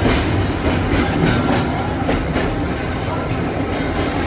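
Australian-built vintage streetcar running along the track, heard from inside the car: a steady rumble with irregular sharp clacks from the wheels and rail joints.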